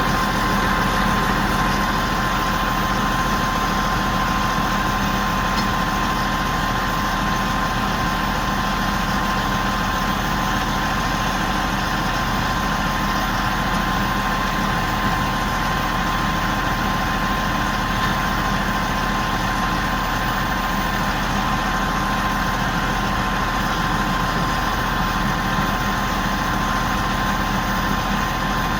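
Large mobile crane's engine idling steadily, a constant hum with a steady higher tone over it.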